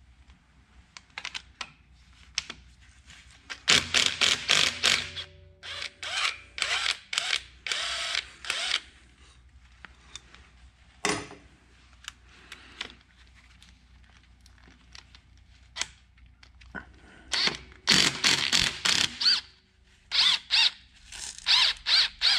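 Hand ratchet clicking in quick bursts, several times, as a nut is loosened.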